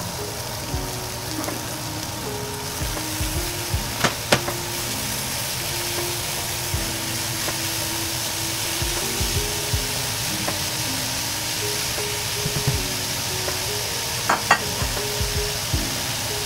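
Beef and vegetables sizzling in a hot skillet as the raw meat is added and spread out with a spatula. There are a few sharp knocks about four seconds in and again near the end.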